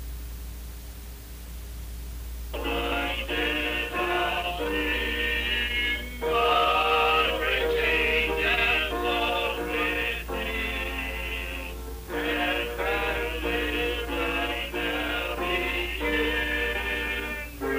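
Male vocal group singing in harmony, coming in after about two and a half seconds and going on in phrases with short breaks, on an old rehearsal recording from about 1954 that sounds thin and muffled, with a steady low hum throughout.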